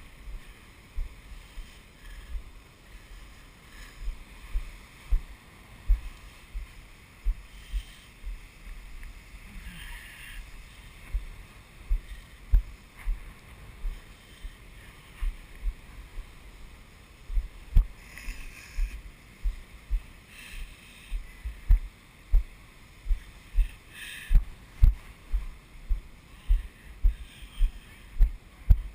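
Deep thuds on a handheld camera's microphone at about walking pace, growing more regular and louder in the second half, over a steady hiss of wind and surf.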